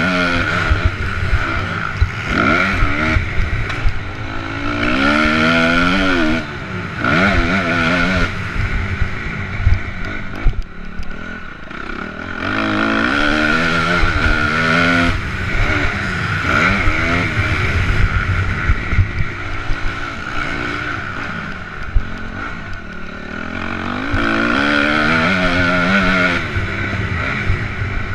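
Honda MX2 motocross bike's engine at race pace, its pitch climbing and dropping repeatedly as the throttle is opened and shut through the corners and gears. Heavy wind buffeting and rattle on the helmet-mounted microphone run underneath.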